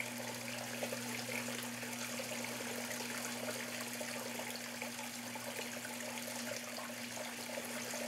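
Pump-fed waterfall in a large paludarium, water running down an artificial rock wall and splashing steadily into a pebbled stream, over a steady low hum.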